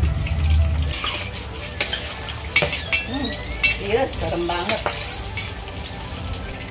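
Whole green chilies deep-frying in hot oil in a steel wok, sizzling with sharp pops, while a metal ladle stirs and clinks against the wok. The pops are the 'tiap-tiap-tiap' sound the cook listens for as the sign the chilies are fried enough. A low hum stops about a second in.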